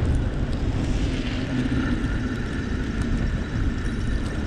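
Steady low rumble of a bicycle riding on 3-inch tires over a snow-covered road, mixed with wind on the action camera's microphone. A faint steady tone joins about one and a half seconds in.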